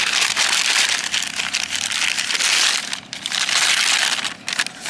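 Takeaway food packaging crinkling and rustling as it is handled close to the microphone, with a short pause about three seconds in.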